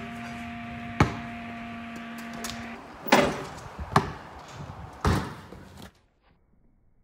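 Basketball bouncing on the ground after a dunk: four sharp thuds spread over a few seconds, with a faint steady hum under the first ones. The sound cuts off abruptly near the end.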